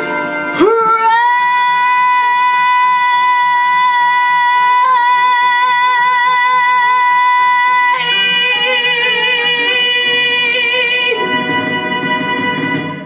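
A young girl holds one long closing note over a karaoke backing track. The note swoops up into pitch, stays steady, then gains vibrato in its last few seconds. It ends about eleven seconds in, and the backing band's final chord rings on and fades out.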